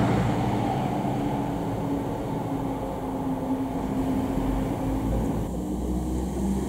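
Fire engine's diesel engine running as the truck pulls away, the sound slowly fading. The sound changes about five and a half seconds in.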